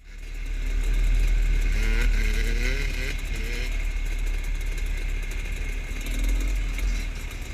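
Off-road dirt bike engines running, with a heavy low rumble.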